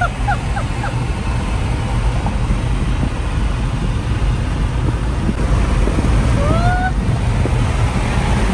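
Car driving, heard from inside the cabin: a steady low road and engine rumble. A few short faint chirps sound near the start, and a brief rising tone comes a little after six seconds in.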